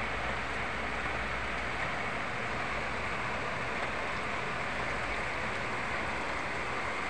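Heavy rain falling as a downpour, a steady even hiss.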